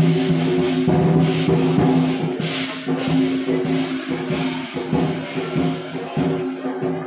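Chinese lion dance percussion: drum, cymbals and gong playing a steady, driving rhythm, with repeated cymbal crashes over a sustained ringing low tone.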